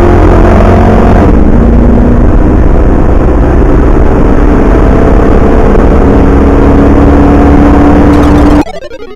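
Pickup truck's engine at full throttle on a drag-strip pass, heard from inside the cab. The pitch drops with an upshift about a second in, then climbs steadily again; the sound cuts off suddenly near the end.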